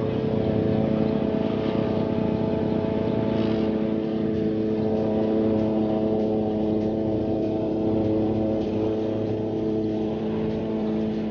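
Walk-behind gas lawn mower engine running steadily.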